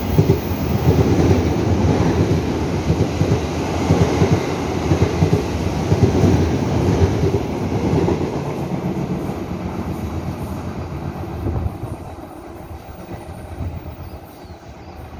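A Taiwan Railway Taroko express EMU passes close by at speed, its wheels clattering rhythmically over the rail joints. The sound fades away in the second half as the train recedes.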